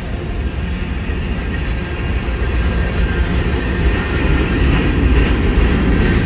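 Freight cars of a mixed manifest train rolling past close by: a steady rumble of steel wheels on rail that grows a little louder toward the end.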